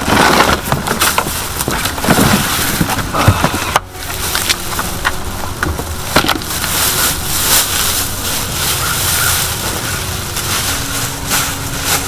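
Crinkling and rustling of the plastic bag wrapped around a new fridge freezer, with cardboard scraping, as it is lifted out of its box and the plastic is pulled off.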